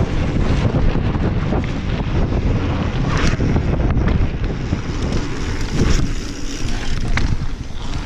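Wind buffeting the microphone of a helmet-mounted action camera as a mountain bike rolls quickly downhill. A loud, unsteady low rumble runs throughout, broken by a few sharp clicks or rattles, about three seconds in, near six seconds and again about a second later.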